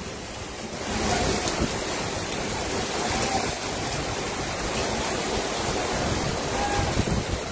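Heavy rain falling and floodwater rushing along a street, a steady even rushing noise that grows louder about a second in.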